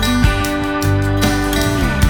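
Background music: acoustic guitar with a steady beat, one held note sliding down near the end.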